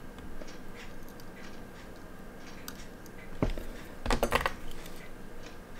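Faint, regular ticking about twice a second, then a soft knock about three and a half seconds in and a brief clatter of small metal watchmaker's tools, the tweezers being set down on the bench.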